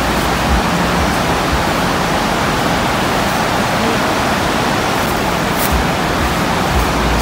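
River water rushing over shallow rapids, a steady, loud noise of moving water.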